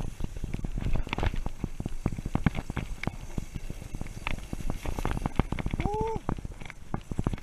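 Mountain bike clattering over a rough dirt trail: a dense, irregular run of knocks and rattles over a low rumble. About six seconds in comes a brief rising squeak.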